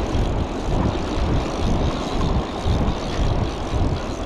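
Wind buffeting the microphone: a steady rushing noise with an uneven, gusting low rumble.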